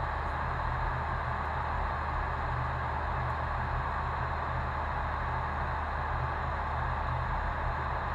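Steady flight-deck noise of a Boeing 737-800 in flight: an even hiss of air rushing past the cockpit with a steady low hum beneath it.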